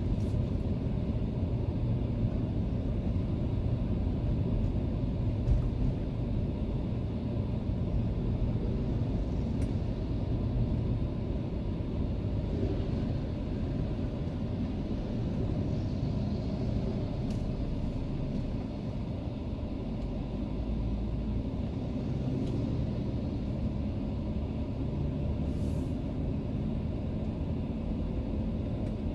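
Steady low engine and road rumble inside the cabin of a Mercedes-Benz W210 E320 driving at moderate speed, with a light knock about five seconds in.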